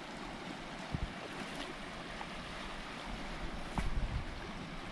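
Steady rush of river rapids running over rocks, with a sharp knock about a second in and a few more knocks near the end.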